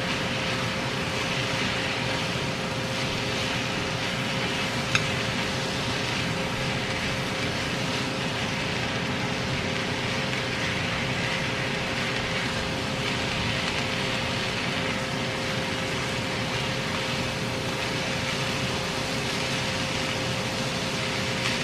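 Noodles and vegetables stir-frying in a hot pan: a steady sizzling hiss under a steady hum, with one sharp click about five seconds in.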